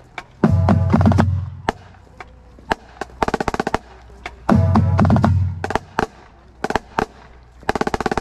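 Marching snare drum played with sticks: runs of quick, sharp strokes and rolls, with two louder, denser stretches of about a second each, one shortly after the start and one about halfway through, and scattered single hits between.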